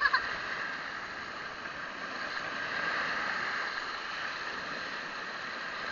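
Steady rushing noise of shallow sea water and wind, with no distinct events.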